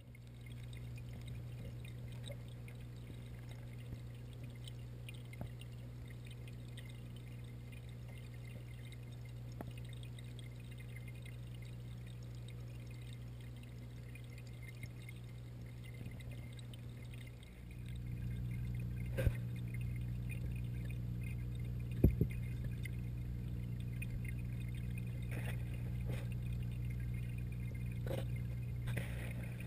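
Saltwater pond's water circulation running: a steady low pump hum with water pouring and trickling. The hum gets louder about two-thirds of the way through, and a few sharp knocks come in the later part, the loudest about three-quarters of the way through.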